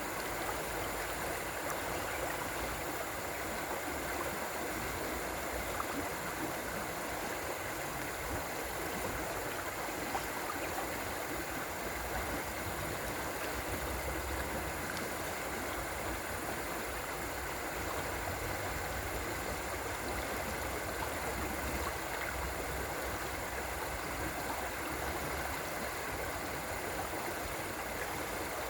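River water flowing and rushing steadily, with a low rumble underneath.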